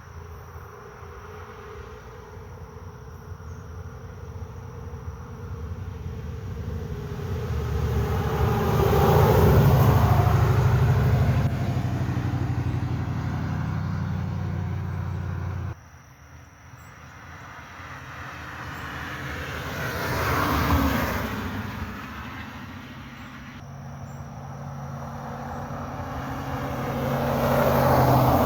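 Cars passing on the road one after another, each swelling and fading as it goes by: three passes, the loudest about a third of the way in. A steady low hum under the first pass cuts off suddenly about halfway through.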